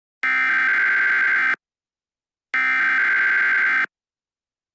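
Emergency Alert System SAME header tones: harsh, buzzy digital data bursts, each about a second and a quarter long, repeated with a second's gap between them. Two full bursts, with a third beginning at the very end.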